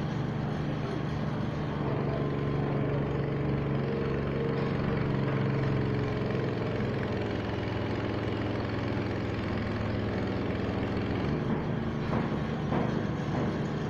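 An engine or motor running steadily with a low hum, easing a little after about eleven seconds, with a few short knocks near the end.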